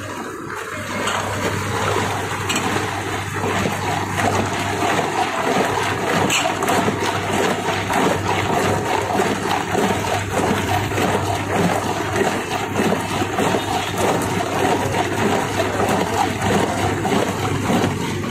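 Liquid running and splashing steadily over a constant low hum.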